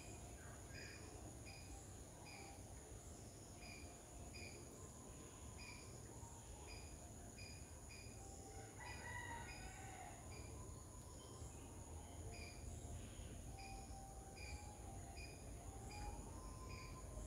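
Faint garden ambience: a bird repeats a short high call about twice a second, over a steady high insect drone, and a rooster crows in the distance about halfway through.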